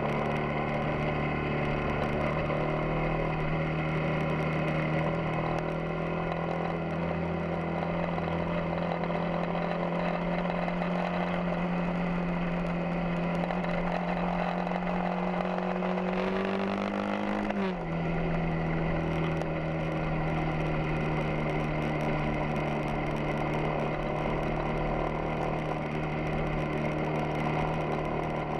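Yamaha XTZ 250 Ténéré's single-cylinder engine running steadily while riding. Its note climbs slowly, then falls suddenly about two-thirds of the way through and holds steady again.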